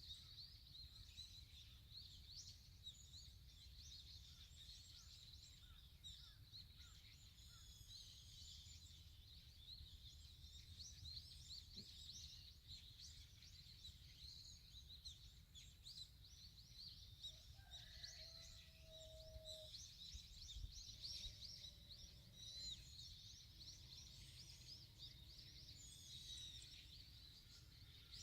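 Many small birds chirping at once, a faint continuous chorus of short high chirps, over a steady low rumble. A lower drawn-out call cuts in briefly about two-thirds of the way through.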